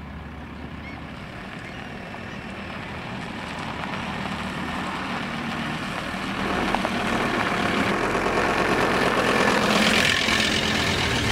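A Volkswagen Transporter T4 van's engine running as the van drives slowly closer, growing steadily louder. Near the end the van passes right overhead, with its tyres rolling on gravel.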